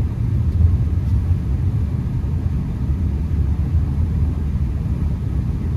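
Steady low rumble of a Honda Accord driving on snowy roads, heard from inside the cabin: engine and tyre noise with no sudden events.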